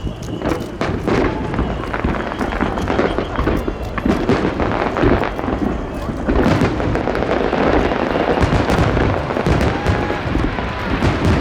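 Aerial fireworks display bursting in quick succession: many sharp bangs and crackles, growing denser and louder about four seconds in.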